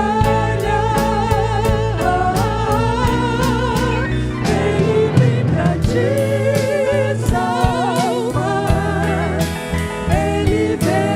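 Christian gospel song: voices singing a melody with vibrato, over a band with bass and a steady beat.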